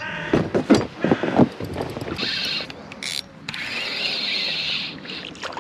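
Spinning reel being cranked to retrieve line, with a few sharp knocks from handling the rod and reel in the first second and a half.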